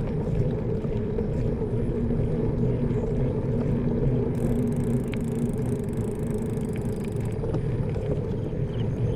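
Steady low rumble with a faint engine-like hum, as of a motor vehicle running close by.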